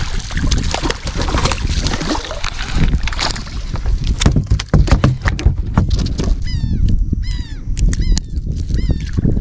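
A hooked speckled trout splashing at the surface, then sharp knocks and thumps as it is swung aboard and handled on the boat's deck, over a steady low rumble. Near the end a bird gives a series of short, downward-gliding cries.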